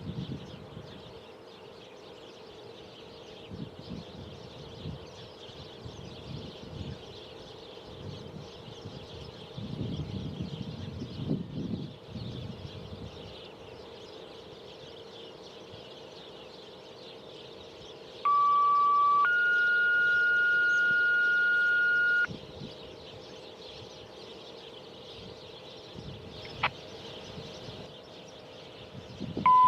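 Two-tone sequential radio activation tones: a steady tone for about a second, then a higher steady tone for about three seconds, a little past halfway. This is the signal that sets off a zone of outdoor warning sirens. Otherwise a low steady background with a faint rumble near the middle.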